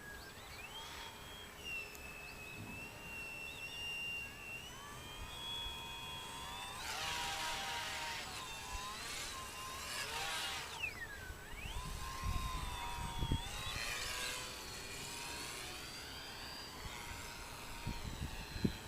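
Electric motor and propeller of a small styrene-foam RC model plane running in flight, a high-pitched buzz whose pitch rises and falls repeatedly with throttle and passes, dropping steeply about ten seconds in.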